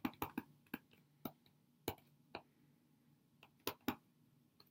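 Plastic stylus tip tapping and clicking on a tablet screen during handwriting: about a dozen faint, sharp clicks at irregular spacing.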